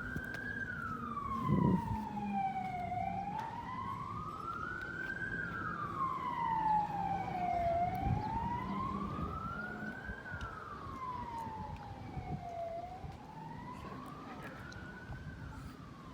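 A wailing siren, its pitch rising and falling slowly, about one full rise and fall every five seconds, over a steady low hum; it grows fainter toward the end.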